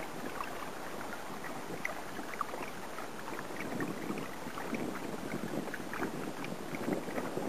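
Water splashing and lapping against a Sidekick inflatable outrigger float and the kayak's hull as the sailing kayak moves, many small splashes over a steady rush of water.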